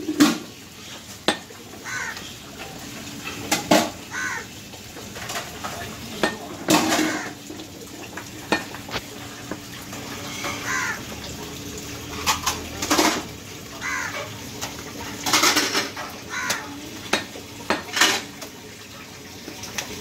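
A heavy butcher's cleaver chopping goat meat and bone on a wooden stump block: sharp, irregular chops, one every second or two.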